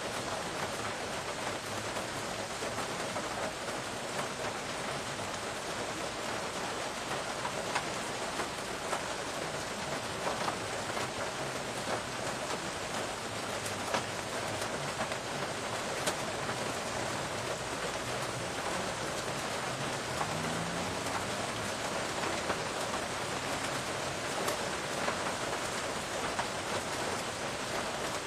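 Steady rain falling, an even hiss, with now and then a sharper tick of a drop landing close by.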